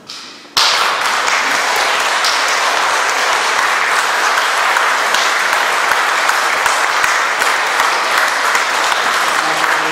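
Audience applauding, a dense, steady clapping that breaks out suddenly about half a second in.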